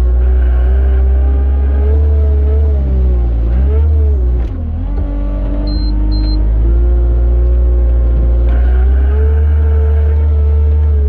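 Tractor engine running under load while pulling a muck spreader, with a heavy low rumble. Its pitch sags and recovers a few seconds in, then holds steady. Two short high beeps sound about six seconds in.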